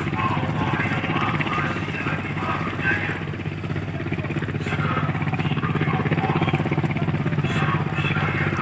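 Marine engine idling steadily, with faint voices in the background.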